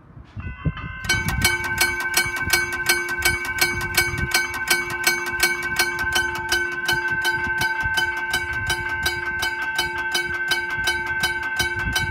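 McKenzie & Holland teardrop level crossing bell starting up about a second in and then ringing rapidly, about four strikes a second, each strike leaving a ringing tone. It is the crossing's warning that a train is approaching.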